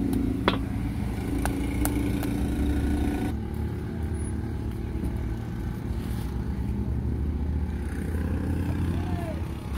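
Low, steady rumble of street traffic with an engine running nearby, and a few sharp clicks in the first two seconds. The sound changes abruptly a little over three seconds in, and the engine hum drops away.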